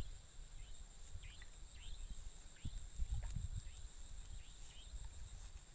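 Swamp ambience at dusk: a steady high-pitched insect drone and repeated short falling chirps, over a low rumble of wind on the microphone. A single sharp knock comes about three seconds in.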